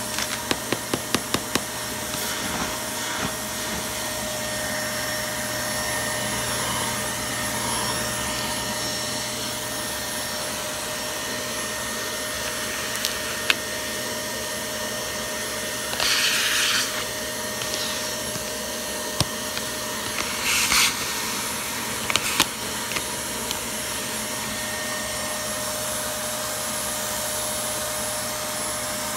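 Vacuum cleaner running steadily with a high whine, its hose tool sucking up dryer lint and debris. A quick run of clicks comes at the start, and two louder bursts of noise come a little past the middle.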